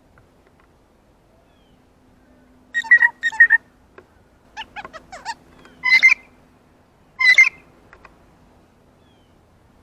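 Blue jay calling: a quick group of three calls about three seconds in, a run of short falling notes, then two louder single calls about six and seven and a half seconds in.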